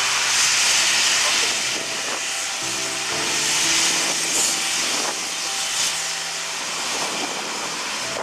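Steam locomotive 18 201 hissing steadily from its open cylinder drain cocks as it creeps onto a turntable. The hiss swells and eases a couple of times.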